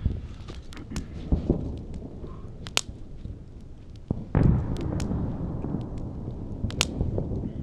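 Small wood campfire crackling, with sharp pops scattered throughout. About four seconds in, a louder, steady rushing sound comes in under the crackle.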